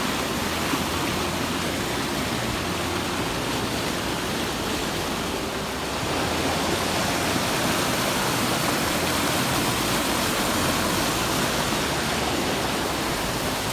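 Mountain river rushing over rocks and small cascades: a steady, even rush of water.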